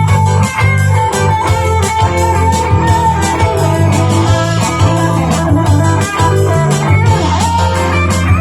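Electric guitar with Lace Sensor Gold pickups playing a lead line of held, bending notes over a backing track with drums and bass.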